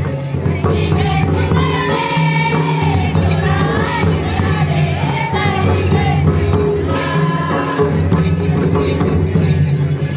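Live Adivasi folk dance music: group singing over a steady rhythm of hand-played barrel drums (mandar). The singing is strongest in the first half.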